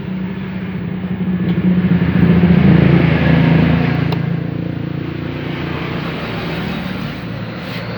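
A motor vehicle's engine running nearby, growing louder about two seconds in and then easing off again.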